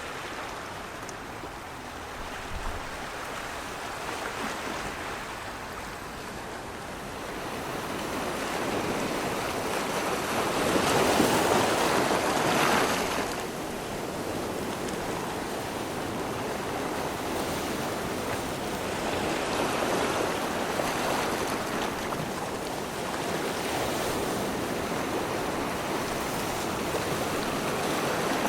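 Waves washing in, a steady rushing noise that swells to its loudest about ten to thirteen seconds in, with smaller surges later.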